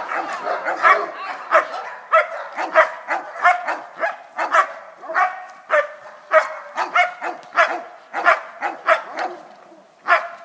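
German Shepherd male barking repeatedly at a helper in a bite suit during protection training, about two barks a second, with a short pause near the end.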